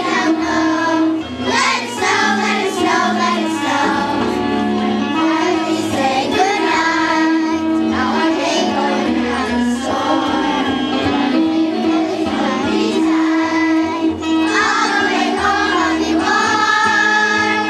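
Children's choir singing a song in unison over instrumental accompaniment.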